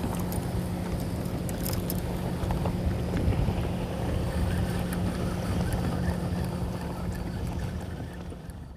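Wind buffeting the camera microphone over water lapping against a kayak's hull, with a steady low hum underneath and a few faint ticks. It fades out near the end.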